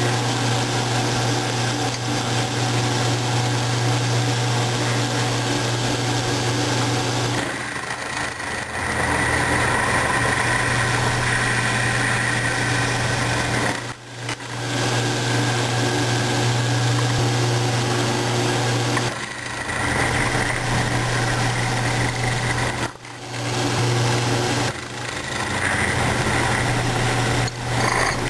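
Milling machine running, its end mill plunging holes into a pipe: a steady motor hum with a higher cutting whine, broken by a few brief dips.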